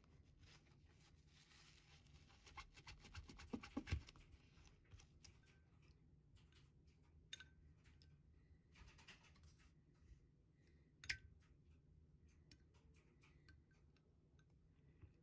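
Faint handling noises: a paper towel rubbing over a small diecast part with scratchy rustling, and a cluster of crackles about three to four seconds in. Later come a few sharp clicks as metal tweezers touch a glass bowl while picking a plastic window piece out of it.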